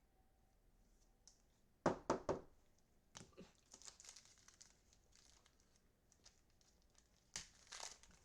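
Trading card pack wrapper being torn open and crinkled. There are three sharp snaps about two seconds in, rustling after them, and two more snaps near the end.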